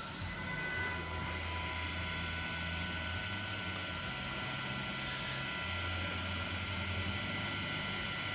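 Steady machinery hum with a thin high whine over it and a low drone that swells about a second in, fades around three seconds, and swells again near six seconds.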